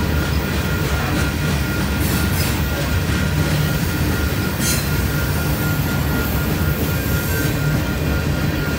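Freight cars of a passing train (covered hoppers and coil cars) rolling by at close range: a steady rumble of wheels on rail with a thin, high wheel squeal held throughout, and a couple of brief sharper squeals.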